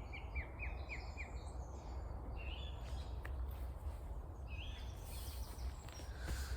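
Small forest birds calling: a quick run of short, falling high-pitched chirps in the first second, then scattered high chirps and a few short rising notes, over a steady low rumble.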